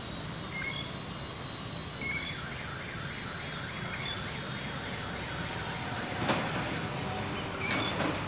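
Small toy quadcopter drone in flight, its motors and propellers giving a steady high whine. A repeating warbling tone comes through a couple of seconds in, and there are two sharp knocks near the end.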